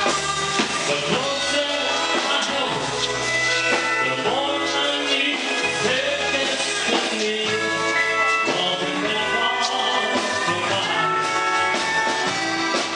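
Live country dance band playing a song.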